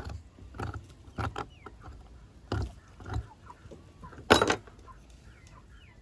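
Scattered clicks and handling noises from a homemade lung scraper and fingers working inside a plucked chicken's body cavity on a plastic cutting board, with one louder knock about four seconds in.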